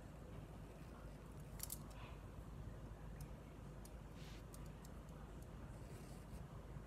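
Quiet, faint scratching of a paintbrush working paint over a textured canvas, with a few small sharp clicks and one short scratchy stroke about four seconds in, over a low steady room hum.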